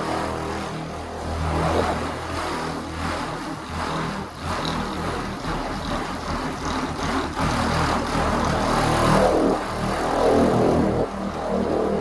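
Electric rotary buffer running steadily, its pad working compound over the car's paint to cut out orange peel; the drone swells and eases as the pad is pressed and moved.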